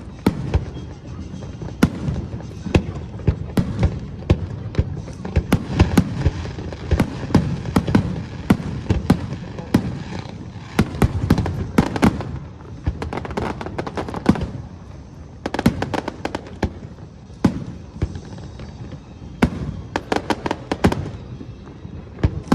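Aerial fireworks bursting in quick succession: dozens of sharp bangs and crackles, densest through the first two thirds, then coming in shorter clusters with brief gaps.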